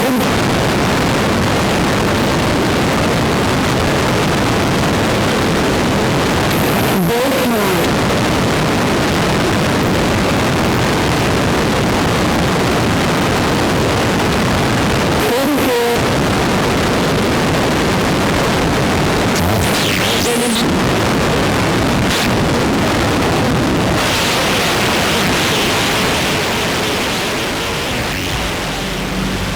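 Harsh noise music: a dense, steady wall of hiss from synthesized noise, cut through a few times by short swooping sweeps. About two-thirds of the way through it turns brighter, and it thins out near the end.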